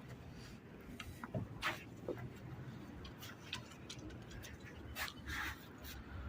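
Pigeons moving about: scattered faint taps and clicks at an irregular pace, with a couple of short, slightly longer rustling sounds.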